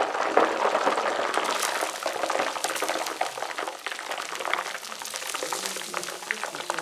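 Liquid bubbling at the boil, a steady crackling and popping hiss.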